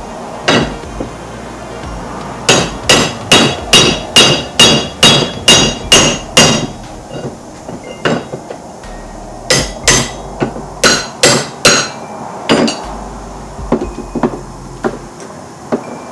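Hammer blows on a steel driveshaft yoke, driving out a seized U-joint: a quick run of about nine ringing strikes, about two a second, then a few scattered blows and lighter taps.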